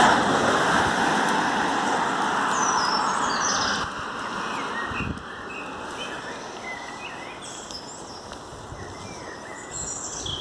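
Small birds chirping and tweeting in short calls, over a rushing noise that is loud at first and drops away about four seconds in.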